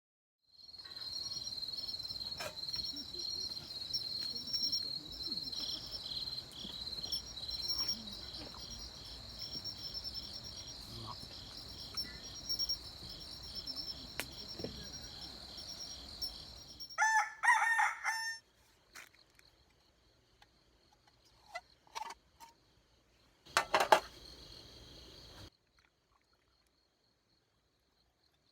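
Insects chirping in a steady, rapidly pulsing high-pitched chorus. About seventeen seconds in, a louder pitched call lasting about a second and a half cuts across it, followed by a few short knocks and a brief louder burst before the sound cuts off.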